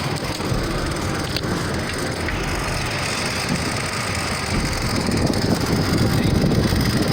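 Dodge Ram 1500's engine idling under a rough rumbling noise that grows louder about four and a half seconds in.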